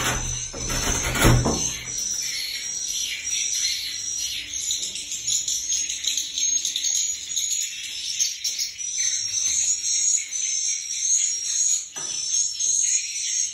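Swiftlet twittering: short high chirps repeating a few times a second without pause. A heavy thump and rustle comes about a second in, and a few sharp clicks near the end.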